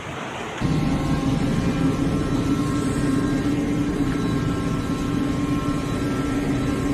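A motor running steadily with a low hum and a rushing noise underneath, starting abruptly about half a second in after a rushing noise like wind.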